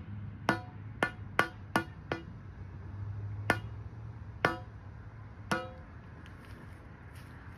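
A hammer strikes the upper end of a long steel pry bar, driving it into the ground under a tree stump. There are eight ringing metallic clangs: five quick blows in the first two seconds, then three more about a second apart.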